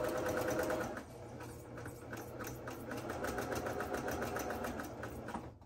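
Domestic electric sewing machine running at a steady speed with a fast, even clatter of stitches as it sews a short eighth-inch line beside a pressed-open seam. It eases off a little about a second in, then carries on until it stops near the end.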